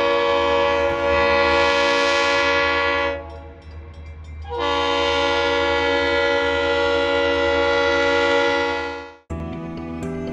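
Diesel locomotive's air horn sounding two long blasts, each a steady chord of several tones, with a gap of about a second and a half between them. The horn cuts off abruptly about nine seconds in.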